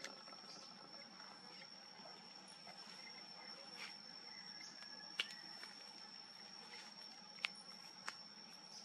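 Faint, steady high-pitched insect trill, one unbroken tone, with a few short clicks about five, seven and a half and eight seconds in.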